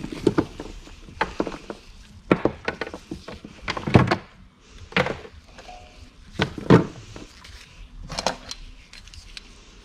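Tangled jumper wires being pulled apart and handled: a run of irregular clicks and light knocks, the loudest about four seconds in and again near seven seconds.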